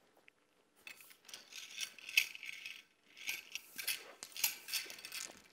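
Wushu spear being thrust and threaded behind the back and caught, with swishing, rustling and light tapping of the shaft in the hands, in two bouts about a second in and about three seconds in.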